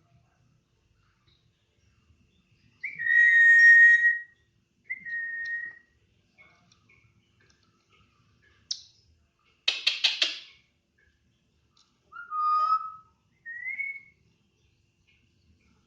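Pet nuri parrot giving a few short whistles, the loudest and longest about three seconds in, with a brief harsh squawk near the middle and a short rising whistle near the end.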